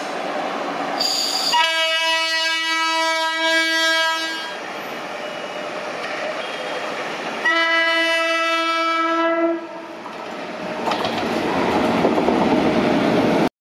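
WAP-7 electric locomotive's horn sounding two long steady blasts, the first starting just under two seconds in and lasting nearly three seconds, the second about seven and a half seconds in, over the running noise of a passing express train. The train noise grows louder near the end and cuts off abruptly.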